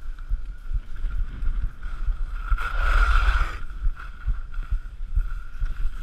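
Wind buffeting an action camera's microphone during a downhill ski run, with the skis hissing and scraping over the snow. The scraping swells louder for about a second near the middle.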